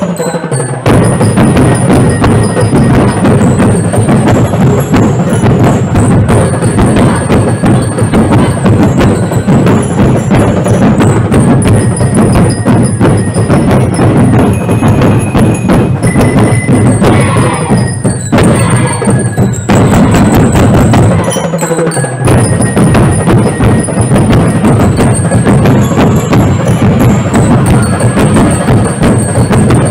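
Loud festival dance music driven by heavy drums and other percussion, with a short break about two-thirds of the way through.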